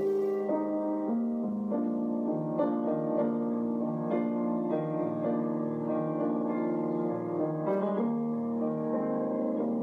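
Background music led by a piano: sustained notes and soft chords changing every second or so.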